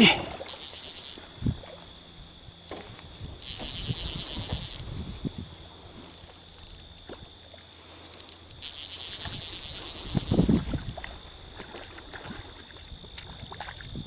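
Fly reel's click drag buzzing in three short spells, about half a second, three and a half and eight and a half seconds in, while a hooked trout is played on a fly rod. A faint steady high whine runs underneath, and a dull bump comes about ten seconds in.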